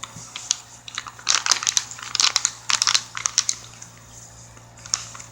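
Snack bag crinkling as it is handled: a run of quick rustles over about three seconds, then a quieter stretch with a couple more near the end.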